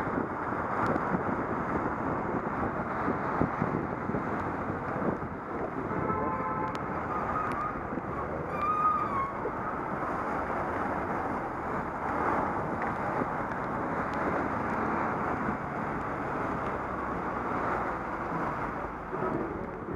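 Steady rush of wind over a moving cyclist's camera microphone, mixed with passing road traffic and tyres on a wet road. A brief high-pitched squeal sounds near the middle.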